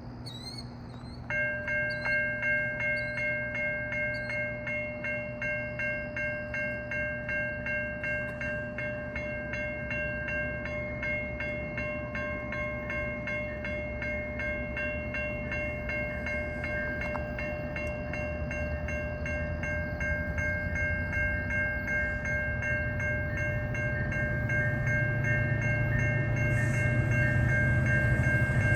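Level crossing warning bells ringing about twice a second, starting about a second in, as a GO Transit commuter train approaches; the train's low rumble builds steadily over the last several seconds.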